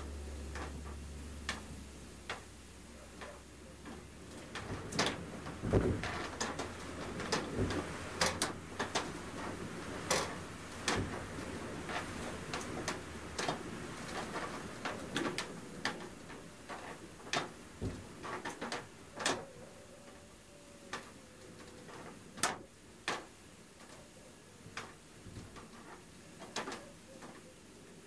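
Blizzard wind heard from inside a house, with shutters knocking and rattling against the house in irregular clusters of sharp knocks over a steady low wind noise.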